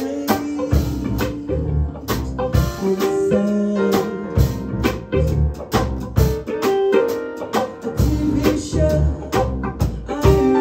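Live jazz band playing: piano, archtop electric guitar, upright bass and drum kit, with regular drum strokes under held, sliding melodic notes.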